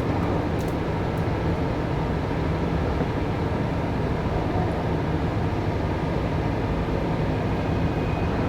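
Steady low drone of heavy machinery running during container loading, with faint steady tones above it and no distinct knocks.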